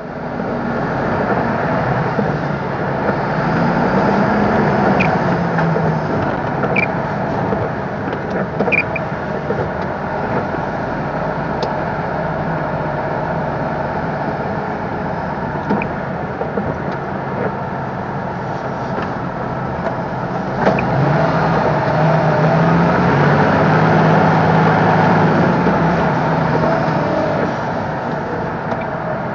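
MAN TGS 26.320 truck's diesel engine heard from inside the cab while driving, its note rising and falling as it pulls through the gears, over road and cab noise, with a few faint ticks.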